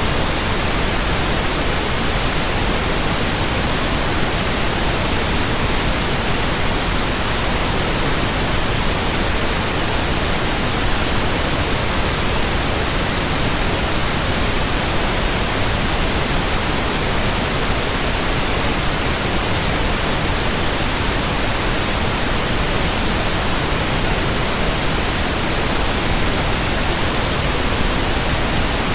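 Steady white noise: an even hiss across the whole range, unchanging, with no beat or pulse in it.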